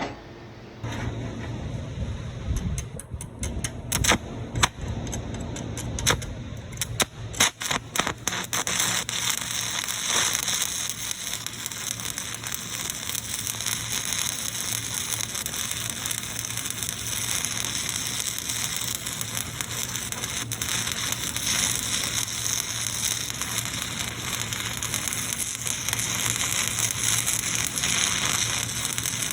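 Stick (arc) welding: the arc stutters with a string of sharp cracks over the first several seconds as it is struck, then settles into a steady crackling sizzle, with a low electrical hum under it.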